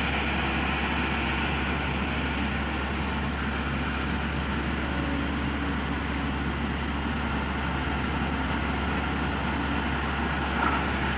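Kobelco SK200 hydraulic excavator's diesel engine running steadily while the machine digs, a constant low engine noise without sharp knocks.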